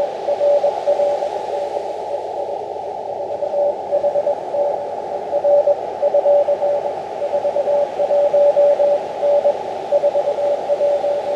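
Morse code (CW) from an Elecraft KX2 transceiver: one steady tone keyed in dots and dashes over a narrow band of hiss.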